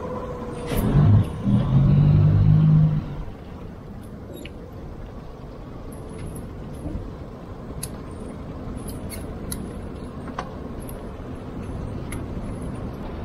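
Boat outboard motor running, louder with a steady low hum for about two seconds starting about a second in, then settling to a steady low rumble. Scattered faint ticks over it.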